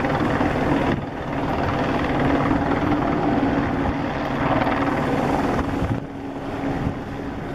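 Steady engine drone with a constant low hum over rumbling noise, dipping briefly about a second in and again near the end.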